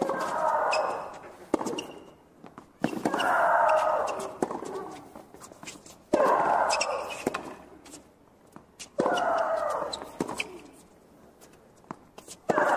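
A tennis rally: a player gives a loud, drawn-out shriek of about a second with each of her strokes, five times about three seconds apart, each starting on the crack of racket on ball. Fainter ball strikes from the other side of the net fall in between.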